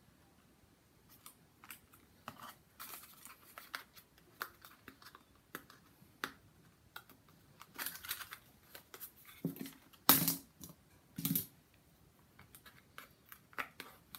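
Small cardboard pizza boxes being handled and set down on a board: light taps, scrapes and rustles of cardboard, with two firmer knocks about ten and eleven seconds in.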